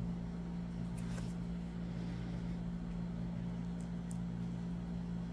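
Steady low machine hum with one constant pitch, with faint light ticks about a second in and again about four seconds in.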